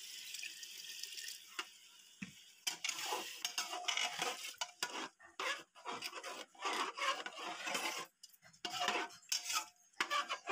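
Water pouring into an aluminium pressure cooker full of rice, then a ladle stirring the wet rice and scraping against the pot in irregular strokes with short pauses.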